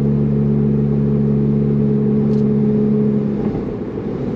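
The 2017 VW Alltrack's turbocharged four-cylinder engine, heard through its AWE Touring exhaust while driving. It makes a steady drone with several even tones, and the note breaks up and dips slightly about three and a half seconds in.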